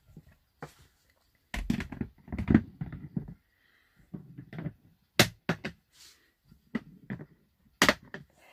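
Handling knocks and clicks at a clear plastic snake tank as its branch is set back and the tank shut. There is a couple of seconds of dull knocking and rubbing, then a few sharp clicks about five seconds in and one more near the end.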